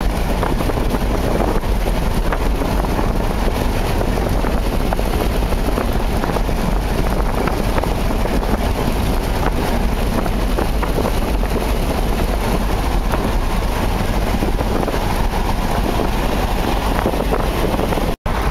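Steady road and wind noise inside a car cruising at highway speed. It cuts out for an instant near the end.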